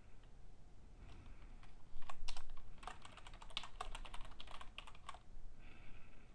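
Typing on a computer keyboard: a few scattered keystrokes, then a quick, dense run of keystrokes from about two seconds in, lasting about three seconds.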